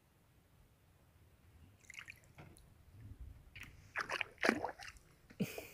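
Sea water splashing and dripping in a few short, irregular bursts, starting about two seconds in, with the loudest splashes in the second half.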